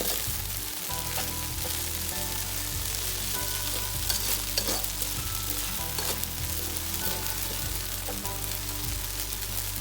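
Food frying and sizzling in a pan as it is stirred, with a few sharp clicks from about four to six seconds in.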